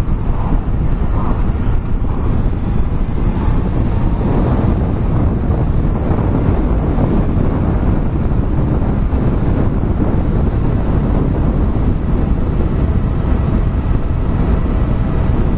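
Steady wind rush buffeting a motorcycle-mounted GoPro's microphone, with a Honda CBR1100XX Super Blackbird's engine running underneath.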